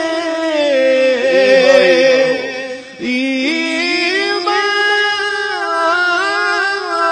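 Man singing a naat, drawing out a long melismatic line with no words. The voice dips and breaks off briefly about three seconds in, then resumes, over a steady held drone.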